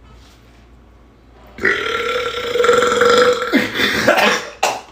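A person's long, deliberate burp starting about a second and a half in, held at a steady pitch for about two seconds, then breaking up into a rougher tail. A short, sharp sound follows just before the end.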